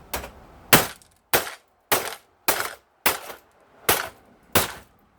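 About eight sharp, evenly spaced knocks, roughly one every half second, as the plastic housing and parts of an electric typewriter are forcefully struck and broken apart for scrap.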